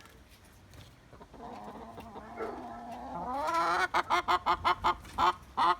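Domestic hens clucking: a drawn-out call that swells over a few seconds, then from about four seconds in a fast run of loud clucks.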